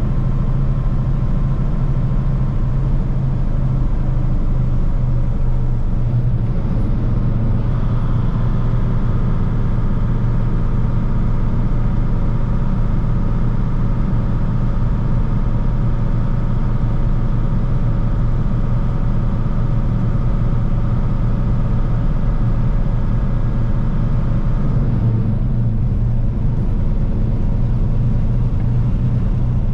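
Semi truck's diesel engine droning steadily under tyre and road noise, heard from inside the cab while cruising on the highway.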